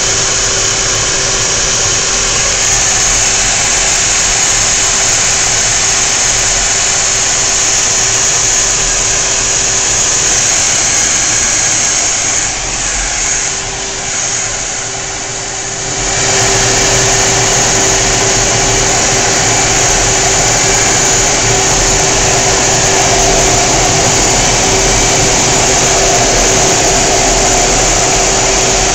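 F/A-18 Hornet twin jet engines and rushing air heard from inside the cockpit: a loud steady roar with a thin steady whine. It drops briefly about halfway through, then comes back to full strength.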